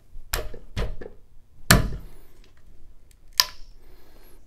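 Tamper seals being dug out of the screw holes in a Sensus R275 gas meter's index cover: a few sharp clicks and knocks of plastic against the meter, the loudest nearly two seconds in and a last sharp click near the end.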